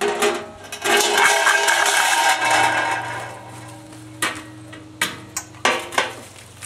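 Metal clatter from a steel barrel smoker: the lid set down with a ringing clang, then a long rustle and scrape as plastic-wrapped parts are pulled out of the hollow drum, followed by a few sharp knocks near the end.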